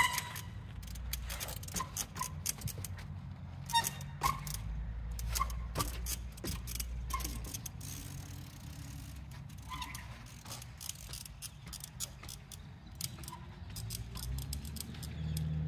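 Trials bicycle being hopped and balanced on gravel-filled timber steps: scattered sharp taps and knocks as the tyres land, clicking from the bike's mechanism, and a few short high squeaks, over a low steady rumble.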